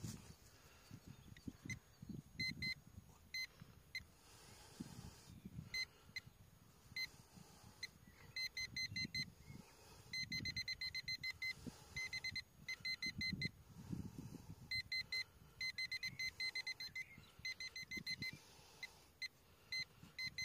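A metal detector gives high, short beeps in quick trains that start and stop, signalling a small metal target in the hole. Under them is soft scraping and rustling of dry soil as the hole is probed with a hand tool.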